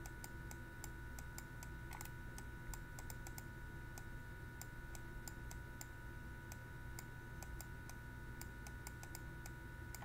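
Faint, irregular small clicks and taps of a stylus writing on a tablet, over a steady low electrical hum.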